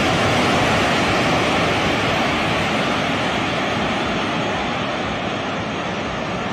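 A loud, steady rushing roar, easing off slightly in the last couple of seconds.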